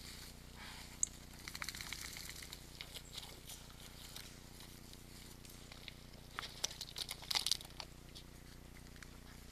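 Red deer hooves stepping through grass, twigs and forest litter at the edge of a mud wallow: scattered small cracks and rustles in two clusters, the louder one about seven seconds in.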